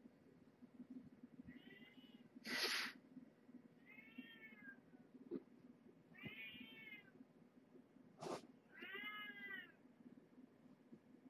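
Kittens about five weeks old meowing: four short, high calls, each rising then falling in pitch, a couple of seconds apart. Two short hissing noise bursts, about two and a half and eight seconds in, the first louder than the calls.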